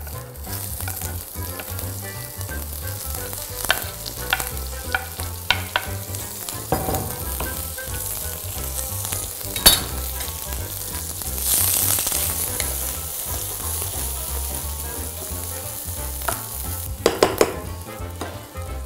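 Chopped onion sizzling as it fries in hot mustard oil in a thick-bottomed pan, with a few sharp knocks of a spatula against the pan. The sizzle swells for a second or two about halfway through.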